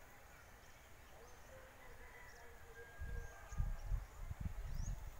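Quiet open-field ambience with faint bird calls: thin chirps and short rising whistles. From about three seconds in, low rumbling buffets hit the microphone.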